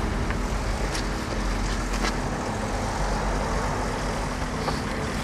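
Steady road traffic noise with a car engine running, an even rumble with no single event standing out.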